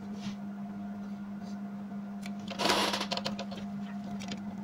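Quiet handling sounds of a hand screwdriver fitting a motherboard screw into a laptop's plastic base: faint small clicks and a short scraping rustle about two and a half seconds in, over a steady low hum.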